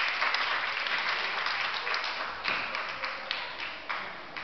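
Spectators clapping, a short burst of applause that thins out and fades away near the end.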